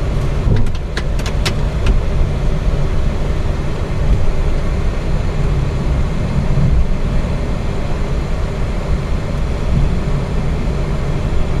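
Steady low cockpit rumble of a Boeing 737-800 taxiing with its CFM56 engines at idle thrust, with a few light clicks about a second in.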